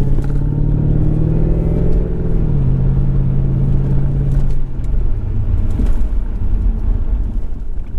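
Jaguar XKR's supercharged 4.2-litre V8 heard from inside the cabin while driving, with a steady engine note that drops slightly in pitch about two and a half seconds in. After about five seconds the engine note fades into a low rumble.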